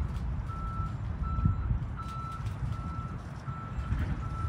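Railroad crossing warning bell ringing in short, even single-tone pulses, about one and a half a second, while the gates are down and the crossing is active. A steady low rumble runs beneath it.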